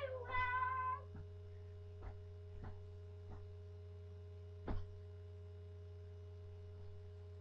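A high-pitched held vocal note for about the first second, then a few soft thumps over a steady low electrical hum.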